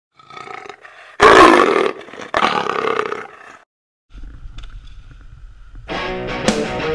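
A loud roar-like growl comes in two bursts, the first about a second in, over the title card. After a short silence there is a low rumble, and music with a steady beat starts near the end.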